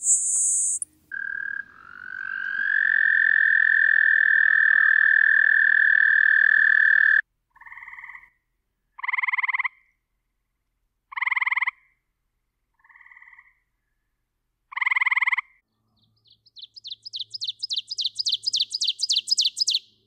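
A Le Conte's sparrow's short, high buzz, then a long steady trill lasting about six seconds. Next come a gray treefrog's pulsing trills, five calls about a second and a half apart, and near the end an ovenbird's fast 'teacher teacher teacher' song that grows louder.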